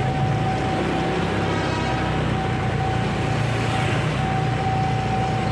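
Motorcycle engine running steadily at low speed amid busy street noise, with a thin steady whine over it.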